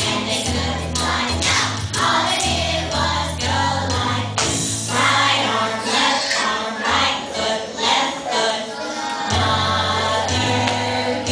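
Music with a choir singing over sustained bass notes; the bass drops away for a few seconds in the middle and comes back near the end.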